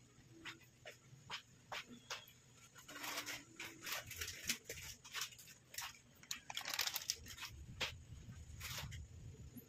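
Thick tomato spaghetti sauce simmering in a pot, its bubbles popping in short, irregular blips that come thicker from about three seconds in.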